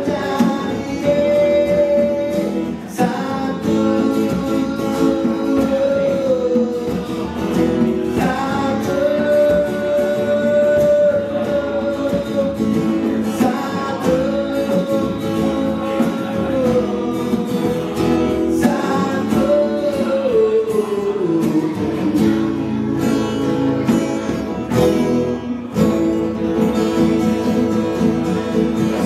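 A man singing long held notes while strumming an acoustic guitar, amplified through a battery-powered portable speaker.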